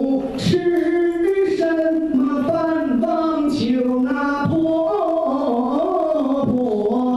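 A man singing a melody solo into a microphone, with long held notes and clear hissing consonants between the phrases.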